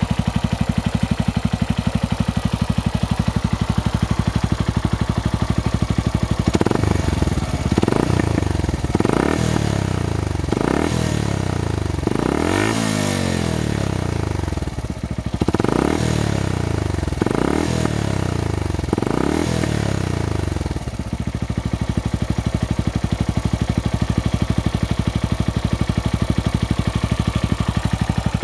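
Suzuki GrassTracker BigBoy's single-cylinder engine through a Hurricane Fatboy aftermarket muffler, idling with an even thump, then revved in a series of quick throttle blips for about fifteen seconds before settling back to idle.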